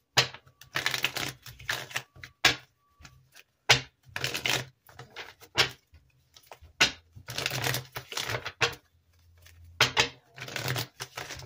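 A tarot deck being shuffled by hand: repeated bursts of rapid card-on-card crackling and flicks, with short pauses between them.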